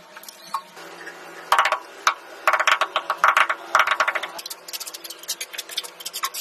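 Tile-setting hand work: three bursts of rapid clicking and rattling, with scattered single clicks between them.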